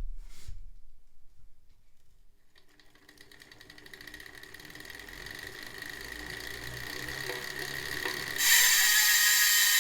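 Zipp 404 Firecrest wheel's freehub ratchet buzzing as the wheel freewheels: a fast, dense run of clicks that starts a few seconds in, grows steadily louder, then jumps sharply louder near the end.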